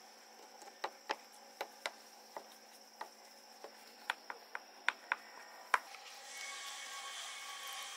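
Irregular light clicks and knocks of hard objects being handled, about a dozen spread over several seconds, the sharpest near the end. A steady hiss comes in about six seconds in.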